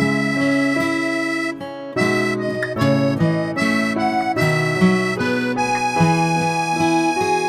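Instrumental background music: a melody of held, reedy notes over chords, changing about every half second, with no singing.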